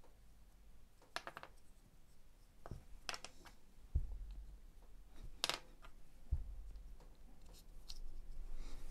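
Small plastic parts of a Makita DX01 dust extraction unit being handled and clicked together by hand: a few scattered plastic clicks and rattles, with two dull knocks about four and six seconds in.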